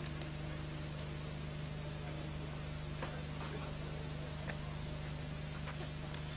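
Steady low electrical hum under a hiss, with a few faint clicks.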